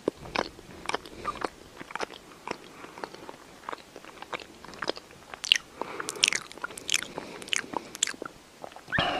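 Cat licking and biting at its front paw while grooming: close, irregular wet clicks and crunches, a few a second.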